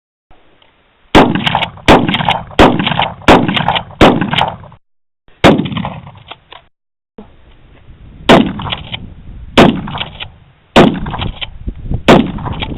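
A series of gunshots from a 12-gauge pump-action shotgun, each a sharp crack with a ringing tail. Five come in quick succession, then one shot followed by a few light clicks, then four more spaced a little over a second apart, with the sound cutting out briefly between groups.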